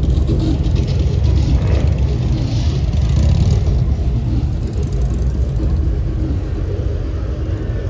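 Motorcycle engines running in street traffic, a loud steady low rumble from many bikes at once.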